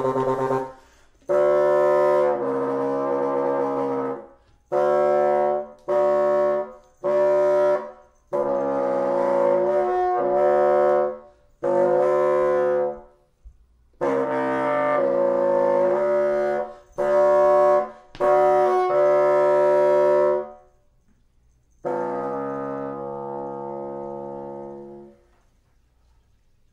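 Solo bassoon playing a string of about a dozen held, reedy notes and multiphonic chords of varying length, separated by short breaks; the last one is quieter and fades away near the end.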